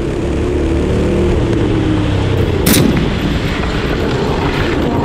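A single loud rifle shot a little under three seconds in, over a steady low rumble.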